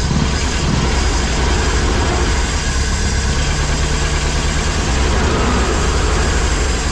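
1973 Pinzgauer's air-cooled flat-four petrol engine running steadily and evenly, cold, on its new fuel pump after about three years without running.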